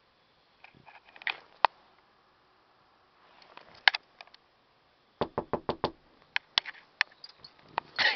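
Close, sharp clicks and light rustling, with a quick run of about six taps a little past halfway.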